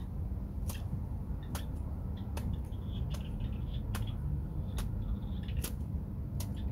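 Sharp clicks at an even pace, a little more than one a second, over a steady low rumble, with faint high chirping in between.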